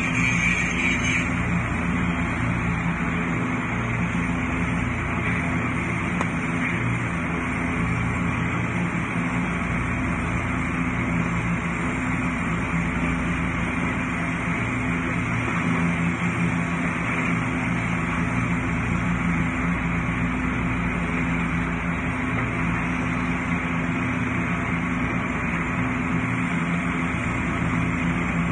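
An engine running steadily at constant speed, a low even hum with a broad rushing noise over it.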